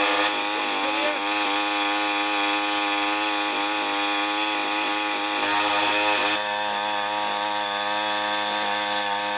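Small gasoline engine of a portable capstan rope winch running steadily at a constant pitch, with the winch rigged and the rope wrapped on its drum.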